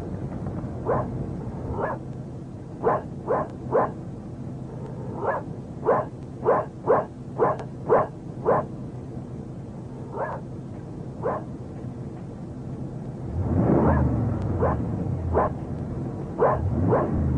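A dog barking over and over, single sharp barks in uneven runs, about twenty in all. A steady low rumble runs underneath and swells near the end.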